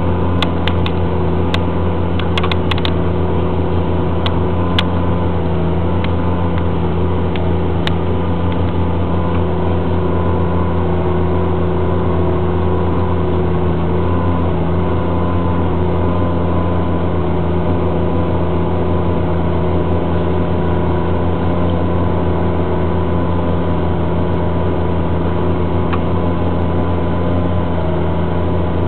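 Diesel engine of a CAT Challenger MT765 rubber-tracked tractor running at a steady pitch under load while it pulls a Spalding flatlift through the field, heard from inside the cab. There are a few light clicks in the first few seconds.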